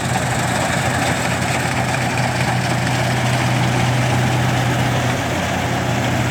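Combine harvester running steadily while cutting wheat: a constant low engine hum under an even mechanical noise.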